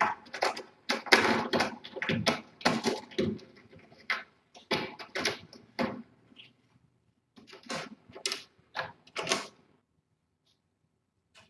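A rapid, irregular run of short clicks and taps that thins out and stops near the end.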